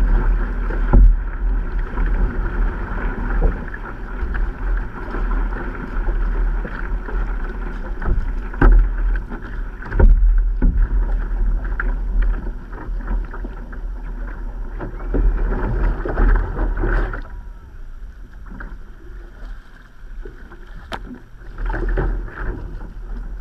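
Water washing and splashing along an outrigger canoe's hull under steady paddle strokes, heard close on the hull with a strong low rumble and occasional sudden thumps. It quietens for a few seconds after about two-thirds of the way through, then picks up again.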